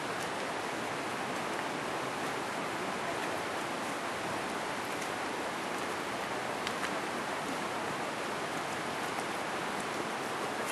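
Steady, even rushing hiss of rainforest outdoor noise, with a few faint clicks.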